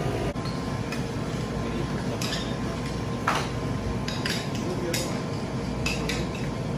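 Metal ice cream spades clinking and scraping on a frozen granite mixing slab as ice cream is chopped and mixed, with short sharp strikes roughly once a second.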